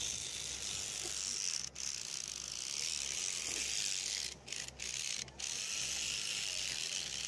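Battery-powered spin toothbrush running with a steady buzz, cutting out for a moment several times around the middle.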